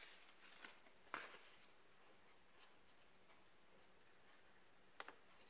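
Near silence: a craft knife cutting craft foam laid on a magazine, with a few faint clicks and soft paper handling noises, the clearest about a second in and near the end.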